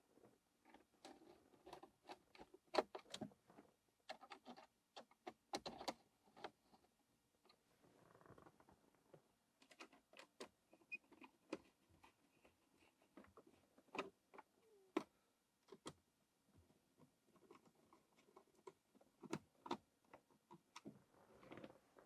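Faint, scattered clicks and light knocks of hand work on a Citroën DS instrument panel as it is refitted: a screwdriver and plastic panel parts being handled, with a couple of sharper clicks a few seconds in.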